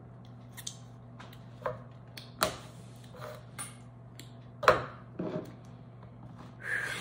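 Light clicks and knocks as small sauce bottles and spice jars are handled and set down on a stone countertop, the loudest a little before five seconds in, over a steady low hum.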